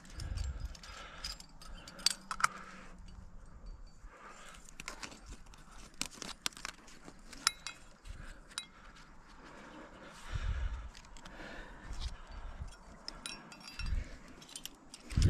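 Rock-climbing rack clinking: metal cams and carabiners on the harness knocking together in a scatter of sharp, ringing clicks, along with scuffing against sandstone as the climber hand-jams up a crack. A few low thumps come through, the loudest near the end.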